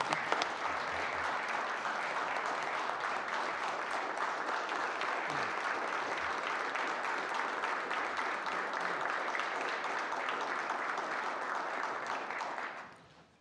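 Members of a legislative assembly applauding, many of them standing: dense, steady clapping from a roomful of hands that dies away near the end.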